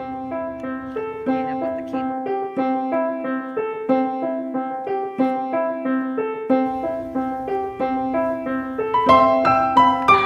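Background piano music: a steady run of broken chords over one repeated low note, climbing to higher, louder notes near the end.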